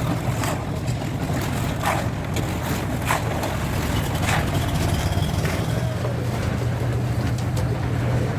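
Small engine driving the concrete-pouring machinery, running steadily, with short sharp knocks or scrapes about every second or so for the first few seconds.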